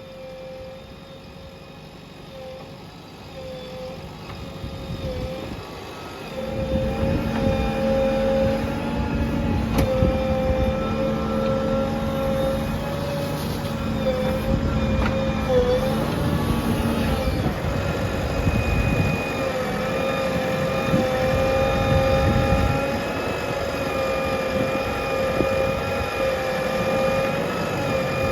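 Heavy diesel machinery working: a JCB 3DX backhoe loader and tractors running, with a steady high whine throughout. The low engine rumble grows much louder about six seconds in.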